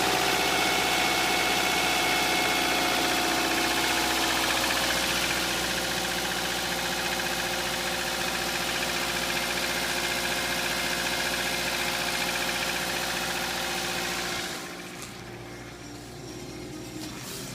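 Subaru EJ203 2.0-litre flat-four engine running steadily on a cold winter start, with the knock it makes for the first few minutes after starting. The engine sound stops abruptly about 14 seconds in, leaving a much quieter background.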